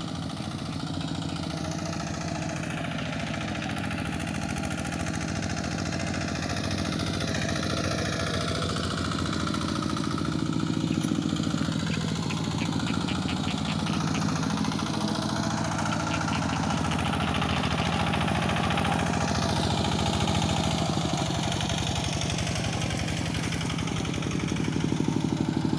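Two-wheel walking rice-paddy tractor's single-cylinder diesel engine running steadily under load while it tills wet, sticky paddy mud, growing gradually louder, most of all near the end.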